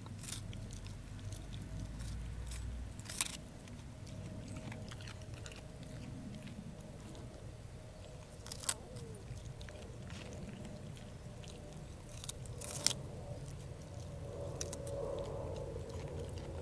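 A Siberian husky chewing and biting a raw radish, with a few sharp crunches spread several seconds apart.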